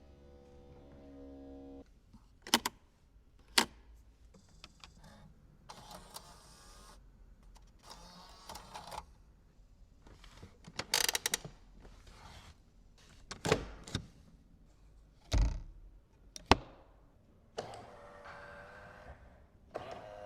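Mercedes SL55 AMG body mechanisms at work: a steady electric hum, then a series of sharp clicks and clunks with short motor whirs in between. One heavy low thunk comes about fifteen seconds in, and a steady hum comes back near the end.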